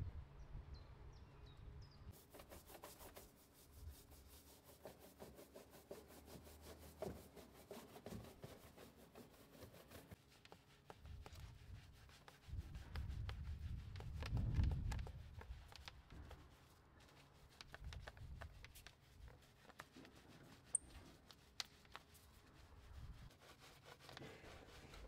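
Detailing brushes scrubbing a foam-covered alloy car wheel: an uneven rubbing of bristles on the rim and spokes, with many small clicks. A louder stretch of low rumbling comes about halfway through.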